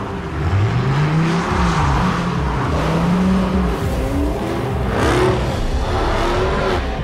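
Dodge muscle-car engines revving hard, their pitch climbing and dropping several times, over a hiss of tyres throwing up water on a wet surface.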